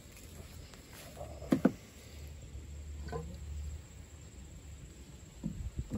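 Half-inch PVC pipe manifold knocking against a plastic trash can as it is lowered into the water: two sharp knocks about a second and a half in, a low rumble of handling, and a few lighter taps near the end.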